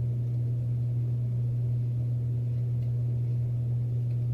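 Steady low hum, even in level throughout.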